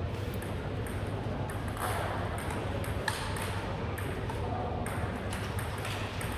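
Table tennis ball clicking sharply off the bats and the table in a rally, a series of taps, most of them in the second half.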